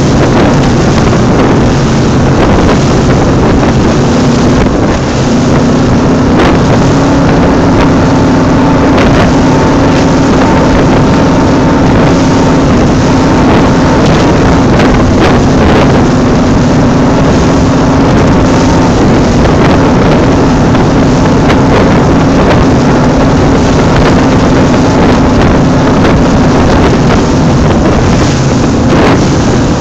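Cigarette-style speedboat running flat out, its engine droning steadily under rushing wind and water spray. The engine note rises slightly about five seconds in.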